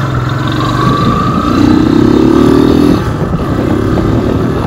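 Motorcycle engine running as the bike is ridden along a road, with wind noise on the microphone; the engine note swells briefly in the middle.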